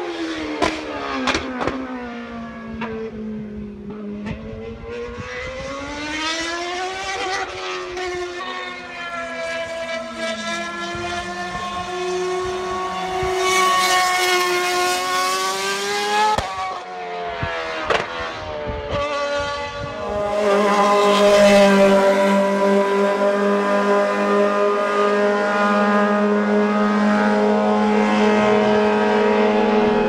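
A formula-style single-seater racing car's engine at full racing revs. The pitch falls with sharp cracks on downshifts at the start, then climbs and drops through several gear changes. For the last third it holds a steady high note, loudest there, as the car runs flat out.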